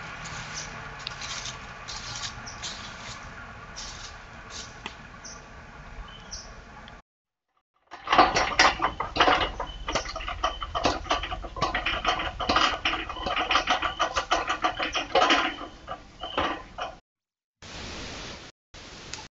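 Footsteps crunching through dry fallen leaves, then, after a short break, louder rustling, crackling and knocking as a person climbs a metal ladder leaning against a tree.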